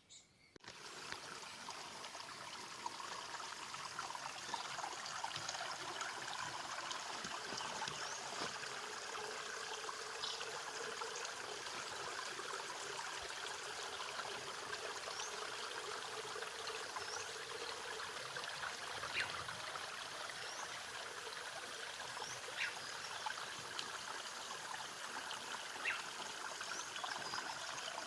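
A small stream flowing and trickling steadily, with a few faint, short high chirps over it.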